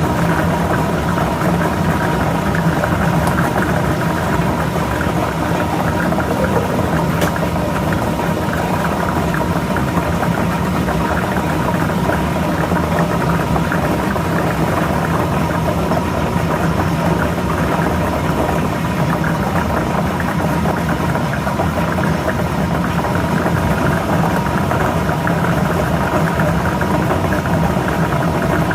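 Lotto ball drawing machine running steadily: a motor's hum with the balls tumbling inside.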